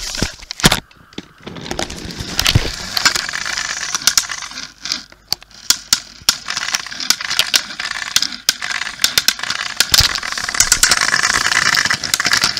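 Small plastic toy trains and playset pieces being handled: a steady run of clicks, knocks and rattles over scraping and rustling, with a few sharper clacks.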